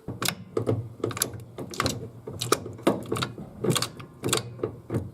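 Reworked transmission gearshift linkage being worked by hand: a run of irregular metallic clicks and clunks as it moves through the gates, over a steady low hum. The worn linkage's excess play has just been taken out.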